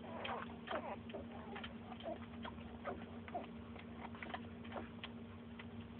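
Newborn pitbull puppies suckling at their mother: irregular small clicks and smacks, with a few brief squeaks in the first second or so.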